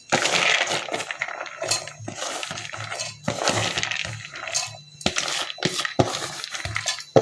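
Drained soaked chana dal being tipped into a mixer-grinder jar: the grains rattle and patter into the jar with scattered clinks and knocks.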